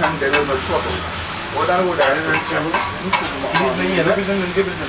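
Paneer, onion and capsicum sizzling on a hot flat iron griddle while a metal spatula stirs and scrapes them. A few sharp clinks come from the spatula striking the plate.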